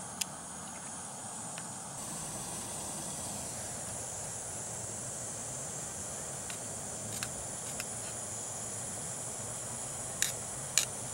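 Steady hiss of a gas canister camp stove burning under a kettle of water. A few sharp clicks of a spoon against the metal cook pot, the loudest two near the end.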